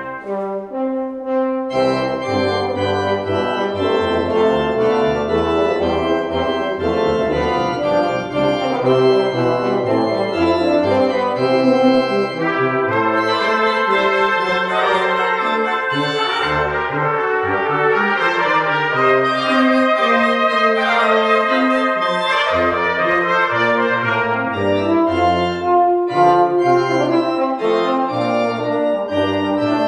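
Brass ensemble of trumpets, French horn and tuba playing a classical piece with pipe organ accompaniment; the music pauses briefly just after the start, then carries on.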